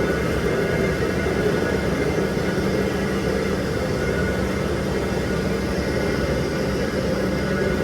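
Steady mechanical drone of a running engine or machine, an even rumble with a constant hum that does not change.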